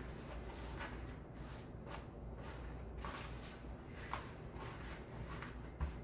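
Wired satin ribbon rustling and crinkling in a string of short bursts as hands handle and fold it, with a soft thump near the end.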